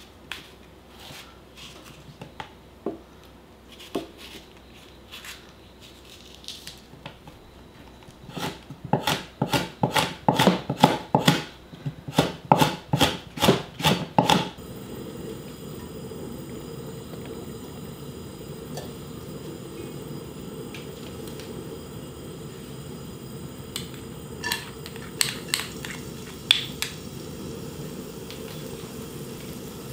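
Kitchen knife chopping a red chili pepper on a wooden cutting board in quick strokes, about three a second, after some soft taps and knocks. Then minced garlic sizzling steadily in perilla oil in a wok, with a few light clicks near the end.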